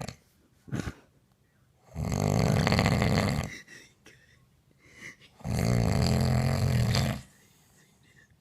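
A sleeping man snoring loudly: two long snores about three and a half seconds apart, with a couple of short breath sounds just before them.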